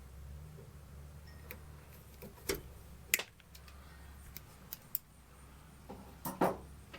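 Pliers stripping the insulation off wire ends: a handful of sharp snips and clicks at irregular intervals, the loudest about two and a half, three and six and a half seconds in, over a low steady hum.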